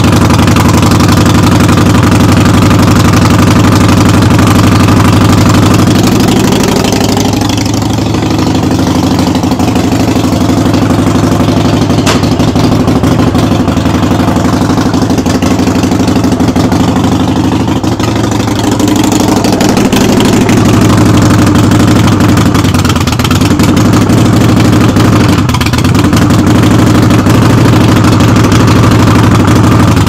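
Harley-Davidson Sportster's V-twin engine running at idle with a loud rattle, like a freight train, dipping slightly in level a couple of times.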